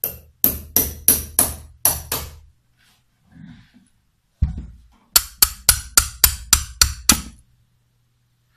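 Sharp metallic knocks, struck while freeing the turbine from a stainless steel Hall flow sensor body. They come in two quick runs of about seven and then about nine, roughly three to four a second, with a single duller thump between them.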